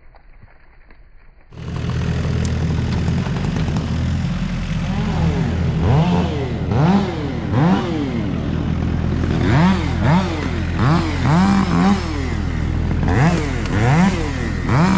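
Chainsaw running, coming in abruptly about a second and a half in; from about five seconds on its throttle is revved up and let back down over and over.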